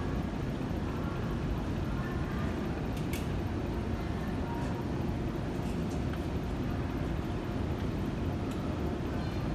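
Ambience of a large indoor mall floor: a steady low rumble with faint, indistinct voices in the background and a single sharp click about three seconds in.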